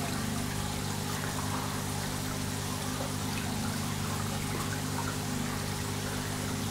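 Aquarium water circulating steadily through the filter, an even running-water sound with a low, steady hum underneath.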